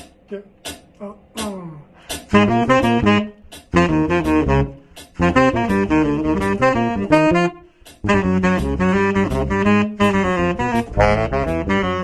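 A Selmer Super Balanced Action tenor saxophone and an electric bass play a fast jazz melody together, in phrases with short breaks between them. For the first two seconds there are only a few short ticks before the duo comes in.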